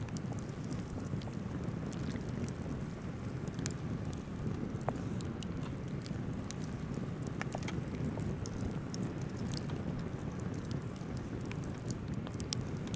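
Hands squishing meat chunks through thick, wet batter in a bowl, giving scattered small sticky clicks and smacks. A steady low rumble runs underneath.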